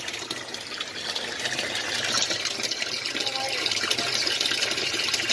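Water gushing steadily into a pool as it fills, a continuous rushing splash that gets a little louder about two seconds in.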